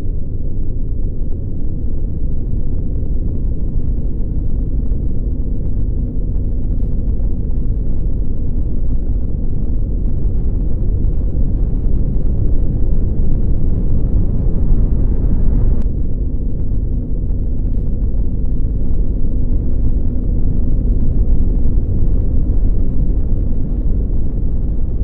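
Deep, steady rumble with almost nothing in the higher range, picked up by the microphone of a rooftop tower camera shaking in a magnitude 5.8 earthquake.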